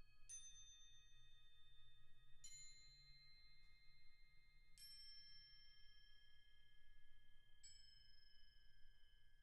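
Four soft single notes struck on tuned metal mallet-percussion bells, two to three seconds apart, each ringing on long after the strike.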